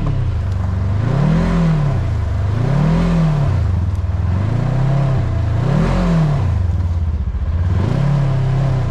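Polaris Ranger 1000's twin-cylinder engine revving up and falling back over and over, about once every second and a half, as the side-by-side sits stuck in deep mud with its wheels spinning.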